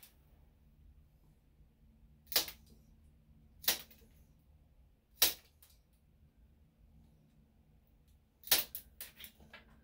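Plier-style dog nail clippers snapping through a small dog's toenails: four sharp clips spaced one to three seconds apart, then a quick run of smaller clicks near the end. The nails being trimmed are somewhat overgrown.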